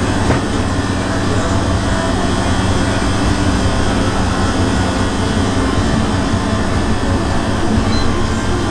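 Steady, loud, low mechanical drone, like a fan or motor running, with no distinct knocks or breaks.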